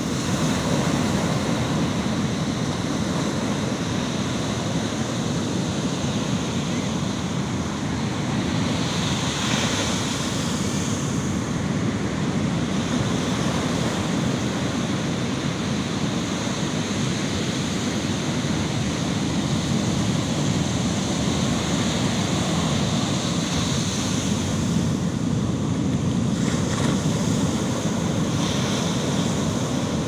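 Ocean surf breaking on a sand beach: a steady wash of waves, with a brighter hiss of breaking foam about ten seconds in and again near the end.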